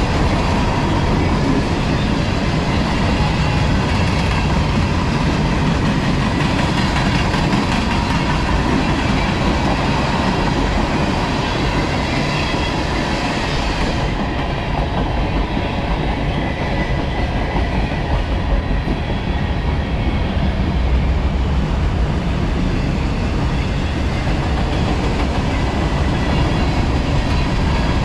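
Freight cars of a long CSX manifest train rolling past steadily, their wheels clattering over the rail joints.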